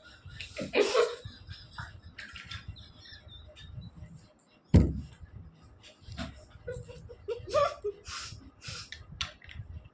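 A woman's breathy, hissing breaths and short laughs as she reacts to the burning heat of a hot chilli she has just bitten. A single sharp thump comes about five seconds in.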